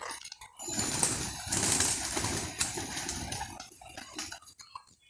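Pigeons cooing and flapping their wings.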